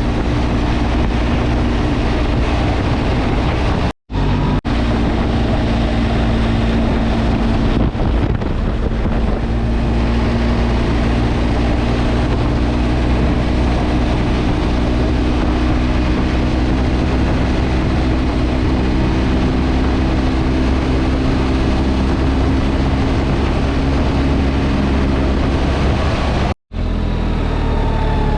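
Motorcycle engine running at a steady cruise, with wind rushing over the microphone. The sound cuts out abruptly for a moment about four seconds in and again near the end.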